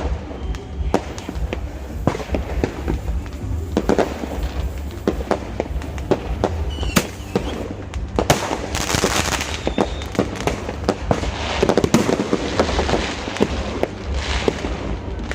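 New Year fireworks going off: a run of sharp bangs and pops, with denser stretches of crackling about eight and twelve seconds in.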